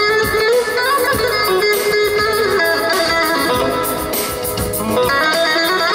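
Instrumental passage of a Turkish folk tune: an amplified bağlama (saz) picking a melody of quick notes, with electronic keyboard accompaniment.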